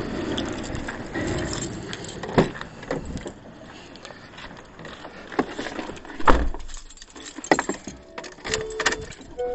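Handled gear clinking and knocking, with a rumbling noise at first and one sharp knock about six seconds in.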